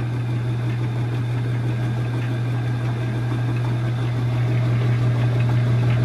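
Metal lathe running steadily with a brake drum spinning in it, a constant low hum with no cutting.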